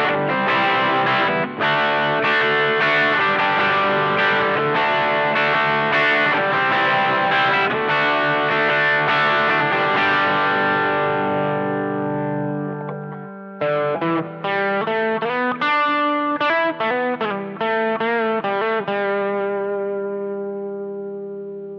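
Gibson Les Paul Tribute electric guitar through a prototype FET-based overdrive pedal with asymmetric diode clipping, into a Blackstar HT5 amp. Overdriven chords are strummed and left to ring out. About halfway through comes a quicker picked phrase that ends on a chord fading away.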